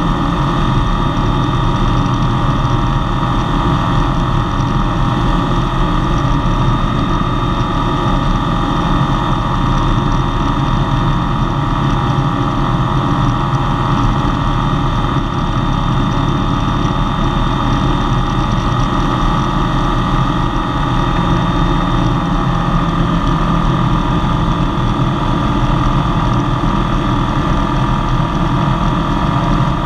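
RANS S-7S light aircraft's engine and propeller running steadily at climb power just after takeoff, heard from inside the cockpit as a loud, even drone.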